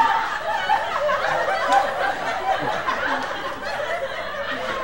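An audience laughing and chuckling, many voices overlapping in a steady wash of laughter.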